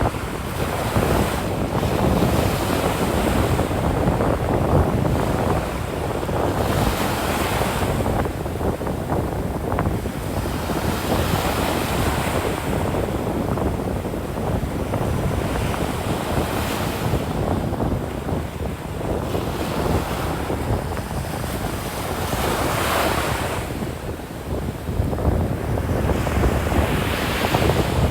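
Atlantic Ocean surf breaking and washing up a sand beach, a wave surging every four to six seconds. Wind rumbles on the microphone underneath.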